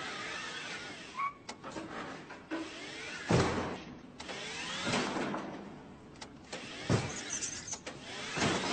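Small electric utility cart shuttling back and forth in short runs, its motor whining in rising and falling glides, with about four knocks as it bumps against the walls.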